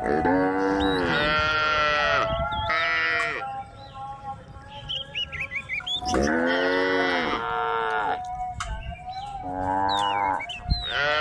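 Several cows mooing in turn, about five long, drawn-out calls with gaps between them.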